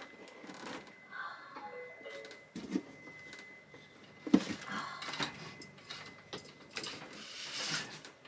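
Electrical cable being pulled through a bundle of wiring: rustling and scraping of the insulation with scattered small clicks and knocks, and a louder stretch of rustling about halfway through and again near the end. A faint steady high tone runs underneath.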